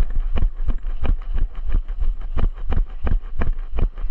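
Footsteps of a person jogging or walking briskly, about three steps a second, over a steady low rumble on the microphone.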